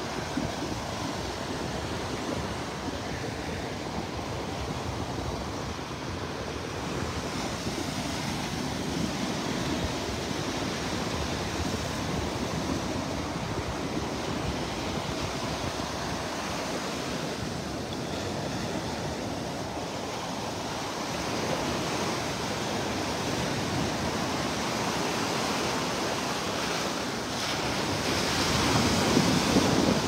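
Small Atlantic waves breaking and washing up the sand in a steady surf, with ocean breeze buffeting the microphone. The surf swells louder near the end.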